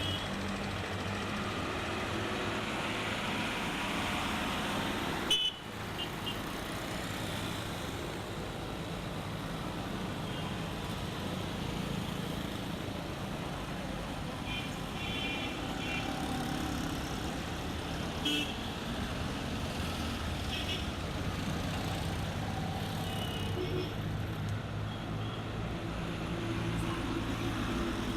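Steady city street traffic: a continuous rumble of engines and tyres, with several short, high-pitched horn beeps scattered through.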